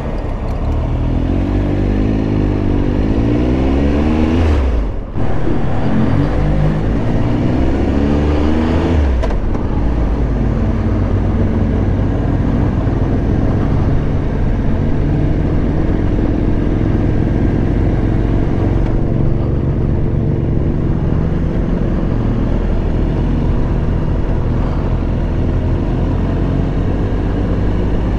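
Triumph Tiger Explorer 1200's three-cylinder engine accelerating through the gears: the pitch rises, drops at a gear change about five seconds in, rises again until another change near nine seconds, then settles to a steady cruise.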